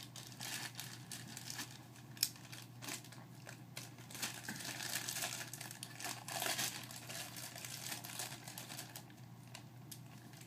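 Plastic packaging crinkling and tearing as a laptop power cord is unwrapped by hand, with scattered small clicks and one sharp click about two seconds in.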